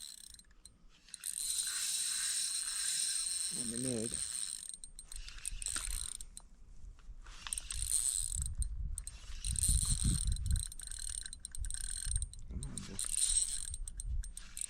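A fishing reel's gears whirring and clicking in long stretches, with a couple of short pauses.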